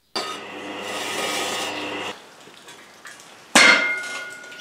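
Pillar drill running and boring through a steel bar for about two seconds, then stopping. About a second before the end, a single sharp metallic clang of steel on steel that rings on briefly.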